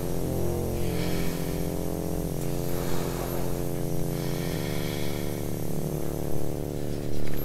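Background film score of sustained low chords that shift every second or two.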